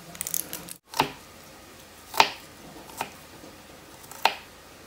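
Knife chopping onion on a wooden cutting board: a few light clicks, a momentary break in the sound, then four separate knife strikes on the board about a second apart, the second the loudest.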